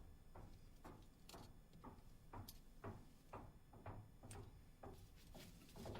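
Near silence with a faint, even ticking, about two ticks a second.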